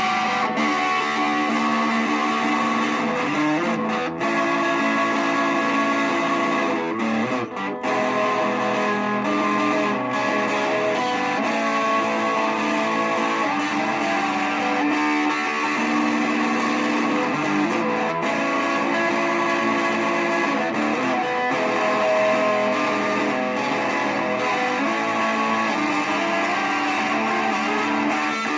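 Guitar music playing continuously, with two brief dips in level about four and about seven and a half seconds in.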